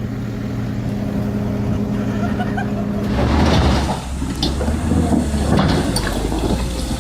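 Heavy vehicle engine running steadily; about three seconds in the sound changes abruptly to a deeper rumble with rattling and hissing.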